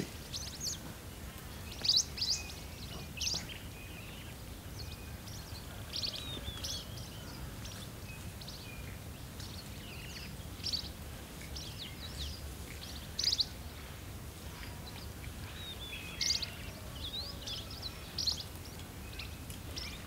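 Scattered short, high-pitched animal chirps and calls, a few of them falling in pitch, over a low steady outdoor rumble.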